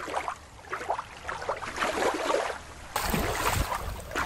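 Water splashing and lapping in a series of short washes. About three seconds in it changes to wind buffeting the microphone with a low rumble over the water.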